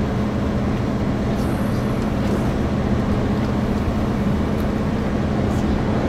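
Steady drone of a Chevrolet truck's engine, heard from inside the cab.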